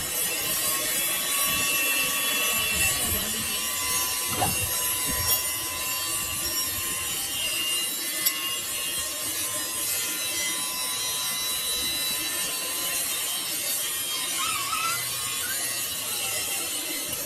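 Metal being machined on a lathe: a steady rasping cutting noise with a faint high whine.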